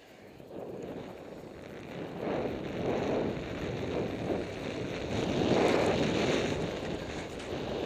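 Wind rushing over the microphone and skis sliding on snow as the skier picks up speed. It grows louder over the first couple of seconds, then swells and eases in waves.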